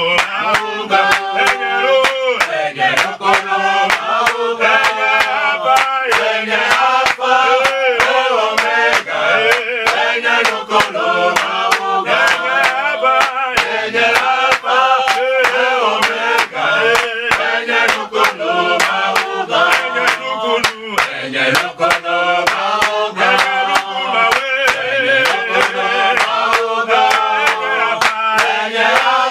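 A group of male voices singing a chant-like prayer song together, with sharp claps keeping a steady beat about twice a second.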